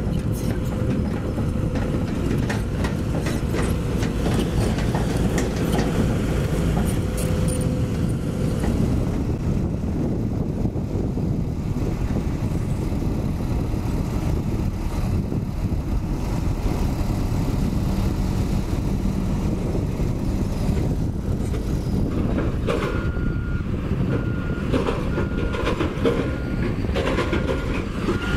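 Heavy construction machinery running steadily: a low diesel engine rumble with metallic rattling, as a crawler crane hoists a long steel pile casing. About 23 seconds in, a reversing alarm starts beeping at an even rate.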